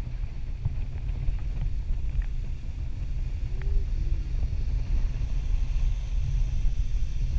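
Wind buffeting a microphone in flight under a parasail: a steady low rumble with a few faint clicks.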